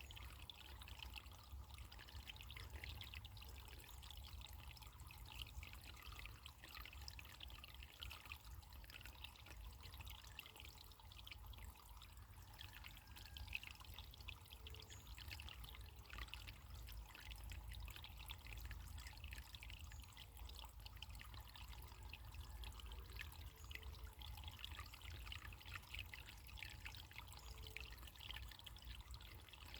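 Faint running water of a small stream or brook, flowing steadily, with a low steady rumble underneath.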